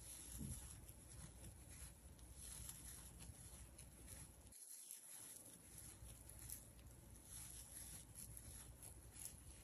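Near silence with faint, soft rustling and light ticks of a crochet hook pulling yarn through stitches while double crochets are worked. The sound drops out completely for about half a second near the middle.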